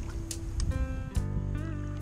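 Background instrumental music with held notes; a new chord with a deep bass comes in about a second in.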